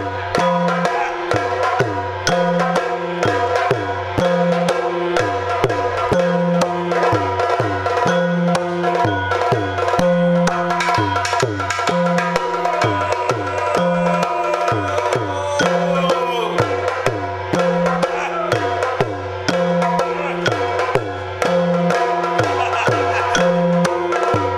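Yakshagana instrumental accompaniment: fast, steady drumming on chende and other drums over a sustained drone, with a repeating low drum pattern and dense sharp strokes.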